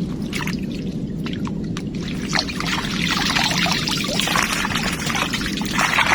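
Water pouring and splashing over a steady low rumble, the splashing getting busier from about two seconds in.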